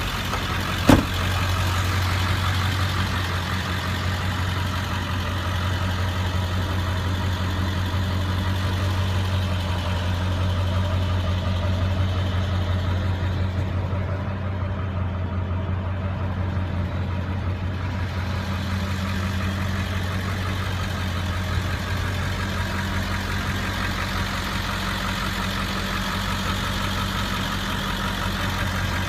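Ford 7.3 L Powerstroke V8 turbo diesel idling steadily, with a single sharp knock about a second in.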